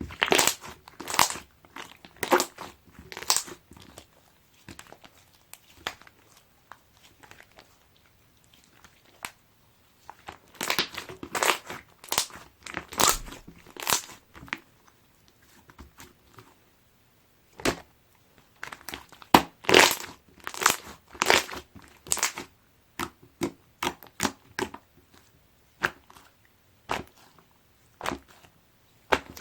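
Hands pressing and squishing a jiggly slime, giving clusters of small wet pops and crackles from trapped air. It goes quieter for a few seconds, then picks up again with busier runs of pops.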